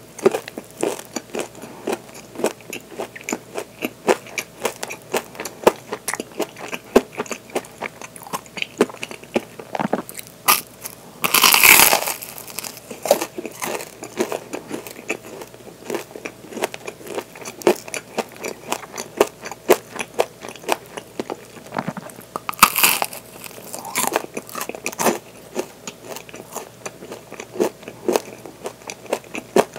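Biting and chewing a waffle crusted with coarse sugar (zarame): a steady run of crisp, gritty crunching, with two louder crunching bites, one near the middle and one about three-quarters through.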